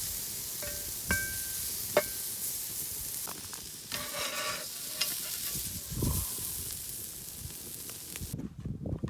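Beef steak sizzling as it fries in a pan, with a few ringing clinks of a metal utensil against the pan about a second in and again at two seconds. The sizzle cuts off suddenly near the end.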